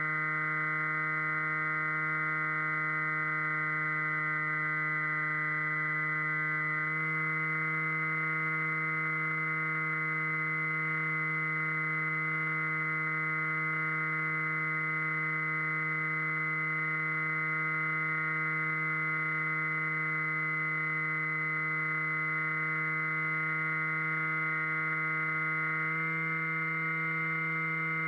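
Electric motor and propeller of an RC flying wing running at steady cruise throttle: a steady pitched whine with many overtones, stepping slightly higher about seven seconds in and again near the end as the throttle is nudged up.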